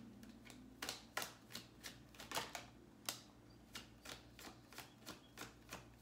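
A deck of tarot cards being shuffled by hand: a run of soft, short card taps and rustles, a few a second, in an uneven rhythm.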